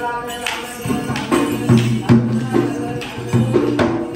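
Traditional Sri Lankan double-headed drum beaten in a quick, even rhythm for a devil dance, with jingling bells over a steady low note.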